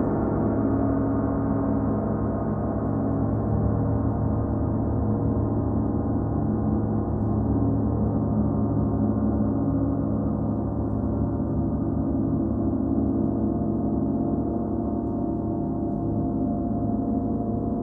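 38-inch Paiste Sound Creation Earth gong sounding in a sustained, steady wash with a deep hum underneath and many overtones above, its highest overtones slowly dying away.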